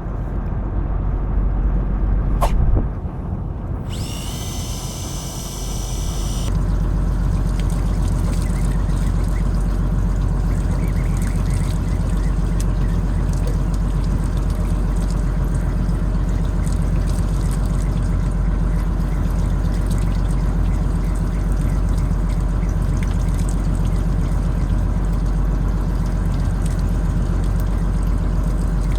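Fishing boat at sea: a steady low engine rumble under a continuous rush of running, splashing water. There is a single sharp click about two and a half seconds in.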